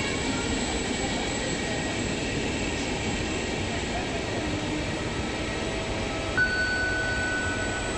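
Railway station noise: a steady rumbling hum from electric regional trains at the platforms. A steady high-pitched tone starts about six and a half seconds in and holds.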